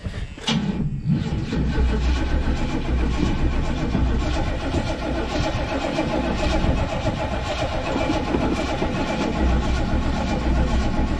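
A car's V8 engine being cranked over by the starter, turning over steadily without firing. This is typical of a fuel-starved engine, which the owner thinks may be out of gas.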